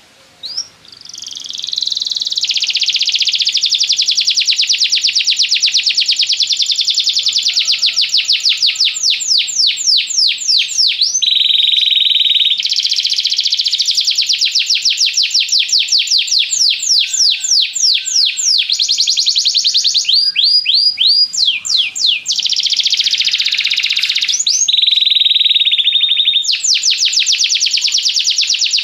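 Domestic canary singing a long continuous song that begins about a second in: rapid trills of quickly repeated notes, alternating with steady buzzing rolls, with a short break a little past two-thirds of the way through.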